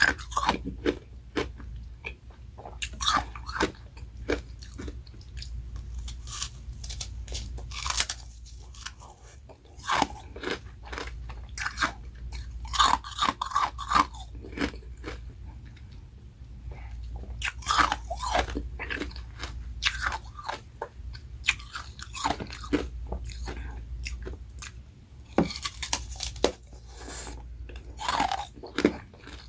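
Close-miked crunching and chewing of ice: carbonated ice rounds topped with refrozen freezer-frost shaved ice, bitten and chewed in irregular bursts of crackling crunches a few seconds apart.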